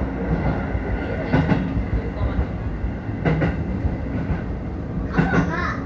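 Keio Dobutsuen Line train running along the track, heard from inside the car: a steady rumble of wheels on rail with a few separate clacks. A voice is heard briefly near the end.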